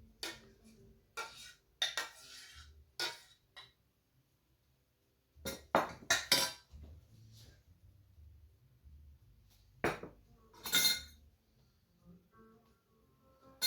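Plates, bowls and cutlery being handled: a scattered run of short clinks and clatters, several in quick succession about two seconds in and again about six seconds in, with a longer scraping clatter near eleven seconds.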